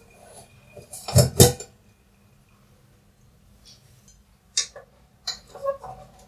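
Steel pressure cooker lid being twisted open and lifted off, with loud metal clanks about a second in. Later a wooden spatula knocks and scrapes against the cooker pot several times while stirring the boiled chickpeas.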